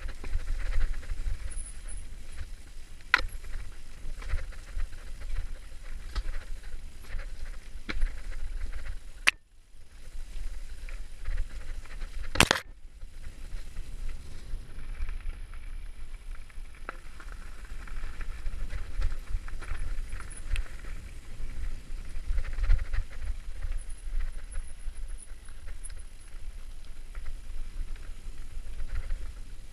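Mountain bike riding fast down a dirt singletrack: steady low rumble of tyres and jolting, with scattered rattles and knocks over stones and roots. About nine seconds in the sound drops away briefly, and a few seconds later there is one sharp click.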